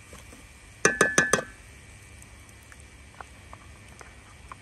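A spatula knocking four times in quick succession against a cooking pot, each knock ringing briefly. Then a few faint ticks and scrapes of stirring in the pot.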